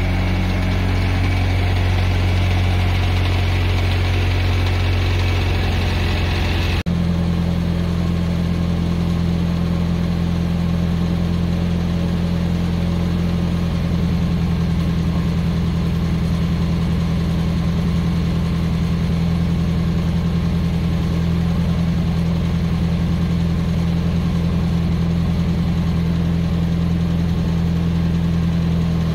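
A vehicle engine idling steadily. The hum changes abruptly to a slightly different steady idle about seven seconds in.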